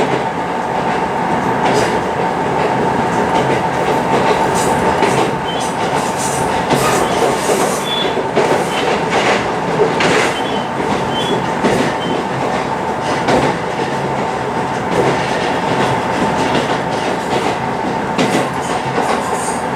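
Diesel railcar running along the track, heard on board: a steady running noise with scattered clicks of the wheels over the rail joints.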